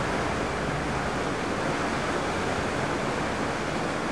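Fast-flowing floodwater of a swollen river: a steady, even rushing of water.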